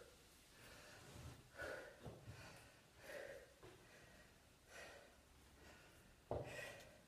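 A person breathing hard from dancing: faint, a handful of audible breaths a second or two apart. A sharp bump near the end is the loudest sound.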